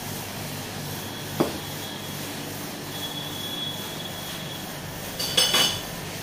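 Steady shop background noise, a sharp click about a second and a half in, and near the end a brief high ringing clatter of metal spoons against a glass sundae bowl.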